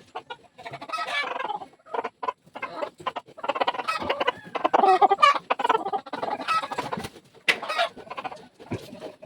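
Chickens clucking, a busy string of calls mixed with short clicks and knocks.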